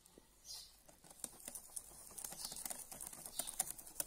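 Wire whisk beating thin pancake batter in a glass bowl: a quick run of light clicks and taps as the wires strike the glass, coming faster from about two seconds in.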